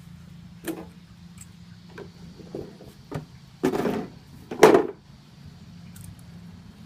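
Cardboard shipping box and packing being handled and opened: a few light knocks and scrapes, then two longer, louder scraping rustles about three and a half and four and a half seconds in, over a steady low hum.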